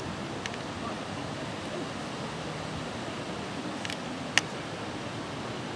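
Steady outdoor background noise of an open playing field, with wind on the microphone, and a few faint clicks. A single sharp click stands out a little past four seconds in.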